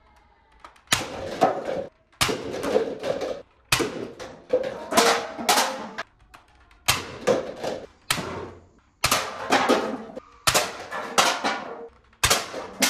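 Toy foam-dart blaster being fired in repeated short bursts, about ten in all, with darts knocking over paper cups and soda cans.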